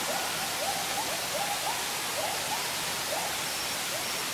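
Rainforest ambience: a steady rushing hiss, with an animal calling over it in short rising notes about twice a second, the calls fading out near the end.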